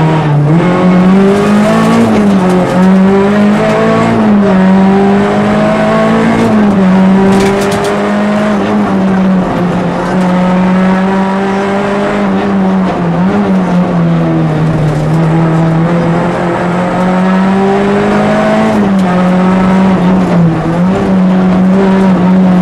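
Peugeot 206 RC's 2.0-litre four-cylinder engine driven hard, heard from inside the cabin. The revs climb and drop again and again with gear changes and lifts for the corners.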